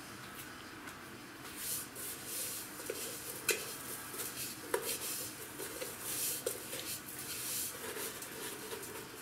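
Pieces of pork fat coated in coarse salt and spices being laid by hand into an enamel pot. The seasoning rustles and scrapes in uneven bursts, and twice a sharp click sounds as a piece or a hand knocks the enamel.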